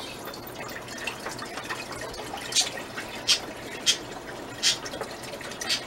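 Chicken broth poured from a carton into a cooking pot: a steady splashing trickle of liquid, with about five brief louder spurts in the second half.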